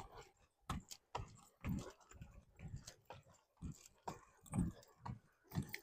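Faint sounds from a dog: short, soft noises at irregular intervals, a little under two a second.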